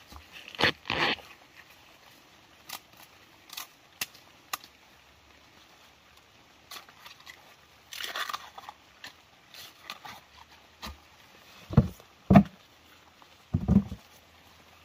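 Dry leaf litter and undergrowth rustling and crackling as a person moves and handles bamboo shoots on the ground. Near the end come a few heavier thuds of footsteps.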